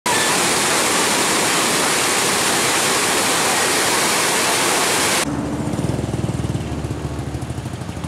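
Waterfall rushing, a steady loud hiss of falling water that cuts off abruptly about five seconds in. It gives way to a small motorcycle engine running with a low, pulsing chug.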